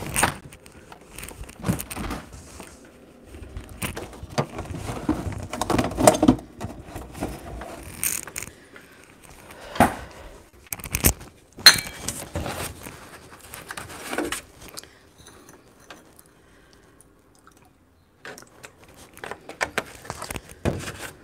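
Kitchen handling sounds: scattered knocks, clinks and scrapes of utensils and containers being moved about as milk is fetched, with one sharp knock about twelve seconds in and a short lull before a few more small knocks near the end.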